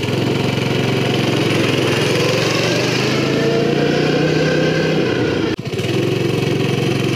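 Small Briggs & Stratton engine running at a steady speed while it drives the wagon along, cutting out for an instant about five and a half seconds in.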